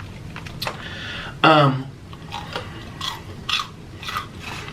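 A person chewing a fried onion ring close to the microphone, with repeated wet mouth clicks and smacks. A brief hummed vocal sound comes about a second and a half in.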